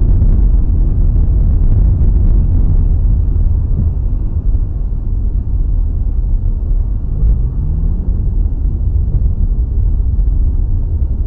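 Loud, steady low rumble of road and engine noise picked up by a dashcam inside a car's cabin on a wet road, with a truck running close alongside. A rising engine tone comes in briefly about seven seconds in.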